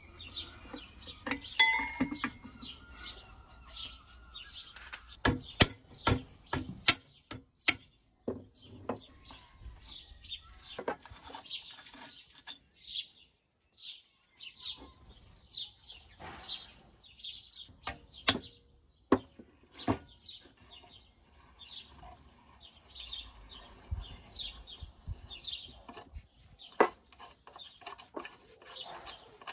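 Scattered metallic clicks and clinks of a ring spanner, nuts and bolts against the rusty steel gongs of a vintage electric fire bell being unbolted, with birds chirping.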